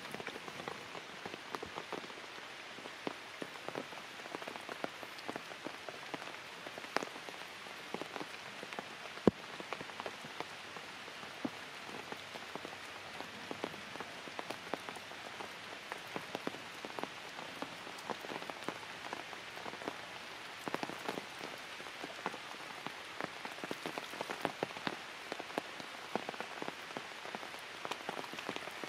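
Light rain falling on forest leaves: a steady hiss dotted with many separate drops ticking, one clearly louder drop about nine seconds in.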